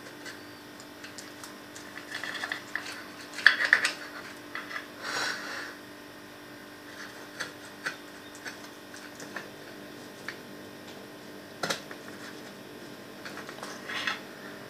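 Knife cutting through a no-bake cheesecake, its blade scraping and clicking against the serving plate in scattered strokes, loudest about four to five seconds in. A faint steady hum runs underneath.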